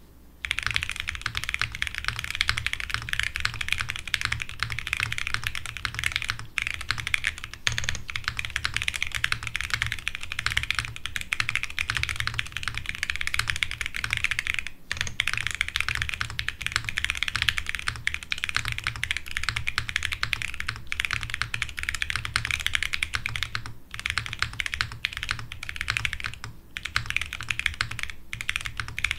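Fast, continuous typing on a custom mechanical keyboard with Gateron Kangaroo Ink tactile switches, a POM plate and PBT keycaps, unlubed. Dense key clacks with a few brief pauses, over a steady low hum, with some desk noise carried through the brass standoffs.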